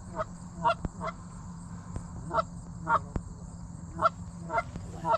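Canada goose honks: about eight short, separate honks, some in quick pairs, spread across the few seconds.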